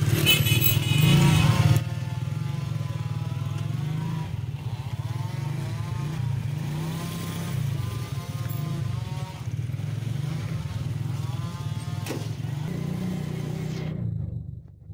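A vehicle's engine running steadily while driving, heard from on board as a low drone. It is louder for the first couple of seconds, with a high tone over it, and the sound drops away shortly before the end.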